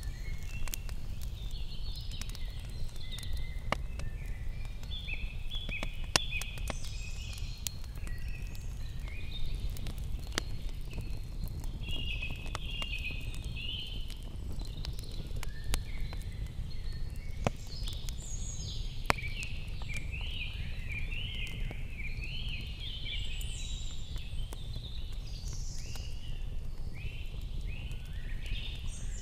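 Small wood campfire crackling with scattered sharp pops, under birds singing in short repeated chirping phrases, over a steady low rumble of outdoor noise.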